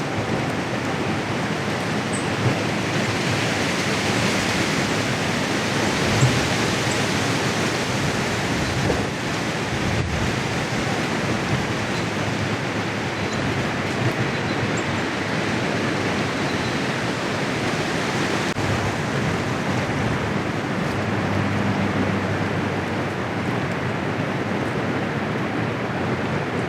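Steady rushing noise of a strong, cold north wind blowing.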